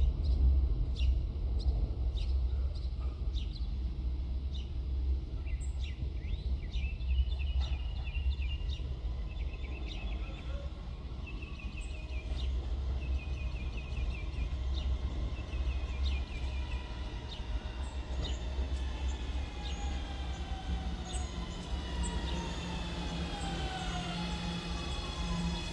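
New York City subway train running through the station with a steady deep rumble and scattered wheel clicks; near the end several whining tones fall steadily in pitch, the traction-motor whine of the train slowing down.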